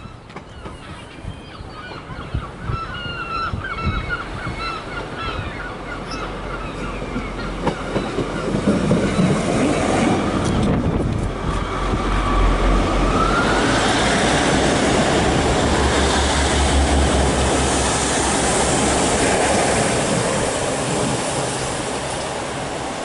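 Birds calling in runs of short repeated notes, then a GWR Class 150 Sprinter diesel multiple unit approaches and passes close by. The engine and wheels on the rails build to a loud, steady rush over a low drone, with a rising whine about 13 seconds in, easing slightly near the end.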